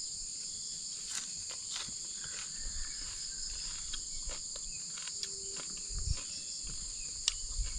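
Steady high-pitched insect chorus, with scattered light clicks and a few soft low thumps.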